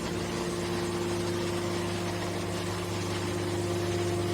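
Hydraulic baler's motor and pump running, a steady hum with a constant low tone.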